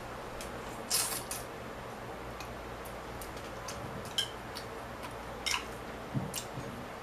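Eating noodles with chopsticks close to the microphone: scattered short clicks and lip smacks of chewing and chopsticks, over a steady low background hum.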